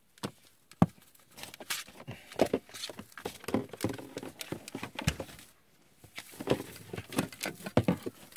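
Tinsel garland rustling, with irregular light clicks and taps as it is wrapped around a large plastic action figure, and a short lull about five and a half seconds in.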